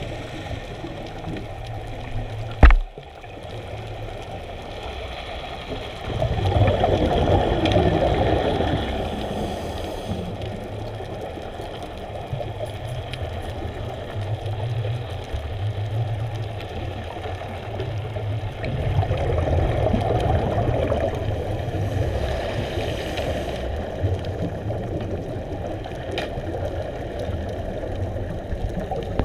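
Underwater sound through a camera housing: a steady low rumble with longer surges of bubbling as scuba divers exhale through their regulators, and one sharp knock about three seconds in.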